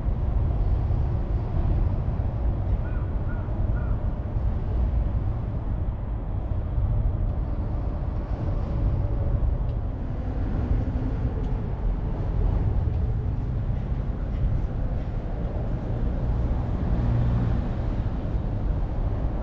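Outdoor city ambience: a steady low rumble from the street and open air, with a few short bird calls about three seconds in.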